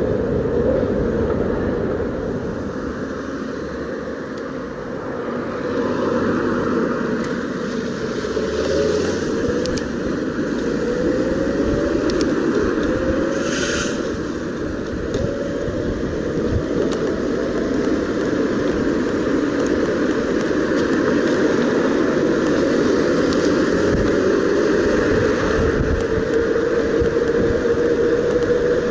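Bafang BBS02 750 W mid-drive e-bike motor whining as the bike speeds up from walking pace to about 36 km/h. The whine bends up and down in pitch and climbs steadily near the end, over a steady rush of wind and tyre noise.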